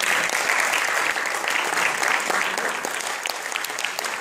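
Audience applauding: a dense, steady patter of many hands clapping, easing off slightly in the second half.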